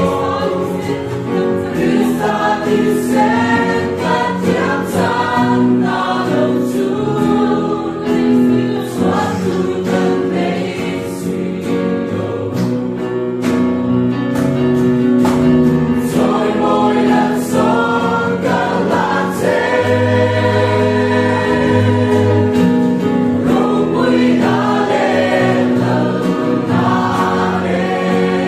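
A church choir singing a hymn in several parts, with long held notes.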